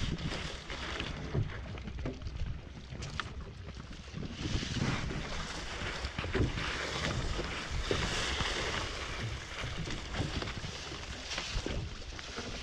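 Wind buffeting the microphone aboard a small fishing boat at sea, with water washing against the hull in uneven swells.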